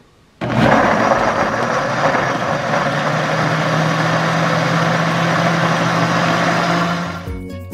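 Countertop blender switched on and running steadily at speed, puréeing tomatillos, garlic and soaked chiles in water into a smooth salsa. It starts abruptly about half a second in and stops near the end, when light tinkling music begins.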